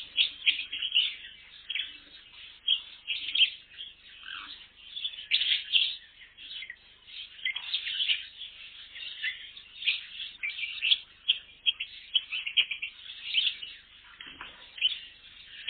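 A colony of small cage birds chirping, many short high calls overlapping in a steady chatter.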